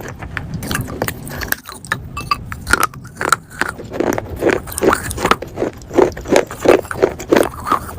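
Baked clay being bitten and chewed with a gritty crunch: irregular crunching at first, then about halfway through a steady chewing rhythm of about three crunches a second.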